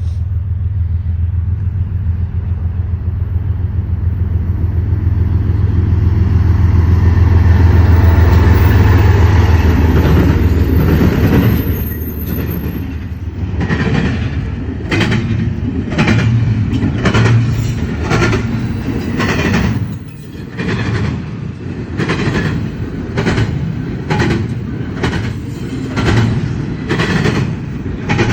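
Long CSX freight train passing: the deep rumble of its diesel locomotives builds to a peak about eight seconds in, then gives way to a steady rhythmic clacking of freight car wheels over the track.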